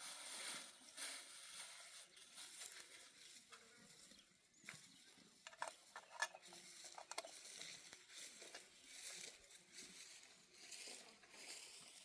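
Faint dry rustling and crackling of barley stalks being pulled up by hand, coming in repeated waves, with a cluster of sharp snaps and clicks about five to seven seconds in.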